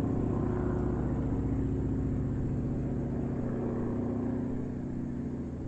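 Airplane engine running steadily during a flyover, a steady hum of even engine tones that gets slightly quieter near the end.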